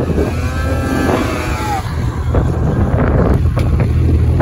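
Ski-Doo snowmobile engine revving up and down as the sled ploughs through deep powder drifts, with a steady wind rumble on the microphone.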